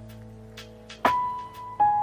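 Instrumental background music with held tones; a new note sounds about a second in and another just before the end.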